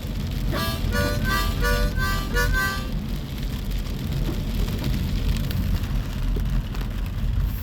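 Harmonica music playing short, repeated chords for about the first three seconds, then breaking off into a steady low rumble and hiss for the rest.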